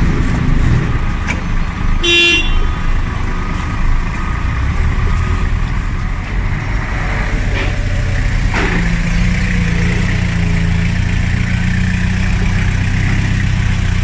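Doosan forklift's engine running steadily while it carries a loaded pallet and lifts it; the engine note rises a little past the halfway point. A short horn beep sounds about two seconds in.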